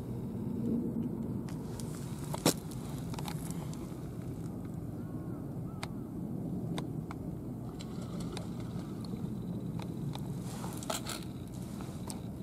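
Steady low outdoor rumble of wind and distant traffic, with a sharp click about two and a half seconds in and a few fainter clicks later as packaged fishing rigs are handled on a plastic tackle box.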